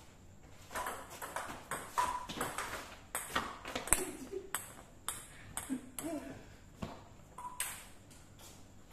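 Table tennis rally: the celluloid-type plastic ball is struck by paddles and bounces on the table in a quick run of sharp pings and clicks lasting about three seconds, followed by scattered single pings and clicks after the point ends.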